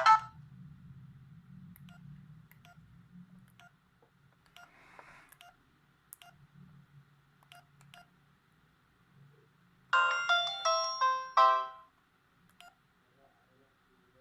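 Polyphonic ringtone from a Pirelli DP-L10's Winbond W56940 sound chip through the phone's small speaker. A tune ends right at the start, followed by faint clicks, then about ten seconds in a short run of bright synthesized notes plays for under two seconds.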